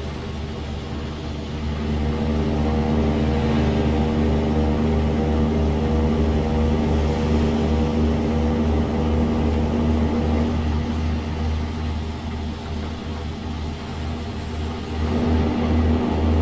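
Mercedes-Benz Actros truck's diesel engine running with a deep, pulsing rumble and a steady pitch. It drops a little in level about two-thirds of the way through and comes back up near the end.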